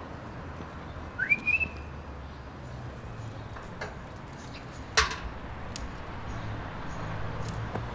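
A short whistle about a second in, rising in pitch and then held briefly. About five seconds in there is a single sharp click or knock, over a steady low hum.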